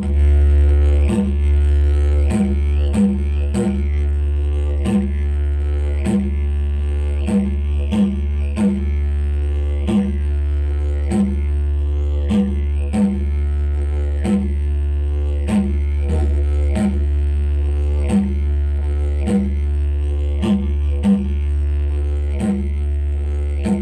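Didgeridoo playing a steady low drone with rich overtones, broken by short rhythmic accents roughly once a second.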